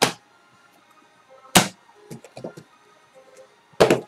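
Three sharp knocks of sealed card boxes and hard plastic card holders being handled and set down on a table, about two seconds apart, with a few lighter taps between them. Faint background music plays underneath.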